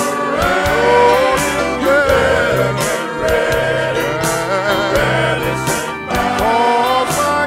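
Gospel song: men's voices singing over bass, keyboards and drums, with cymbal strikes about once a second.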